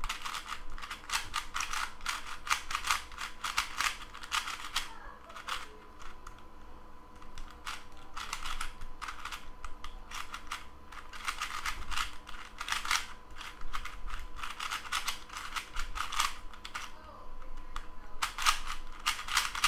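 FangShi ShuangRen 3x3 speed cube turned rapidly by hand in a timed solve: quick runs of plastic clicks and clacks as its layers snap round, with a short lull about five to seven seconds in.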